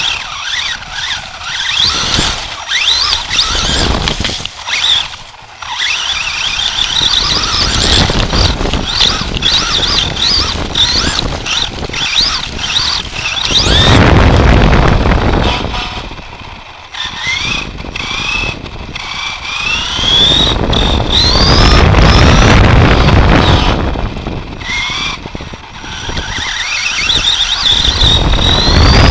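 Team Associated SC10 RC short-course truck heard from a camera on its chassis: its electric motor and gears whine in repeated rising glides as it speeds up and backs off. Under the whine runs a rough rumble and rattle from the tyres and chassis, loudest in a few stretches on pavement.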